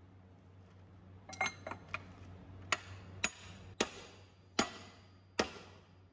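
Hammer blows on a copper drift, driving a tapered roller bearing into its seat in a cast-iron gear reducer housing: sharp metallic strikes with a short ring. A few quick taps come about a second in, then single strikes follow roughly every two-thirds of a second. A steady low hum runs underneath.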